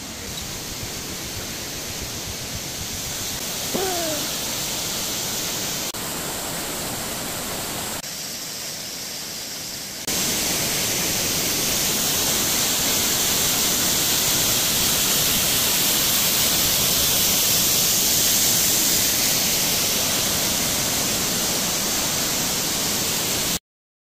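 Steady rush of a waterfall pouring over rock, much louder from about ten seconds in and cutting off abruptly near the end. About four seconds in there is a short call that falls in pitch.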